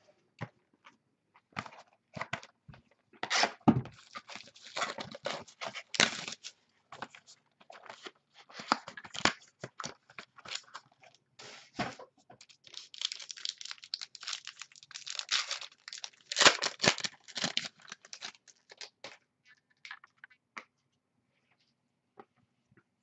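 Packaging being torn and crinkled by hand as a sealed box of football trading cards is opened: irregular bursts of tearing and crackling, thickest in the middle and thinning out near the end.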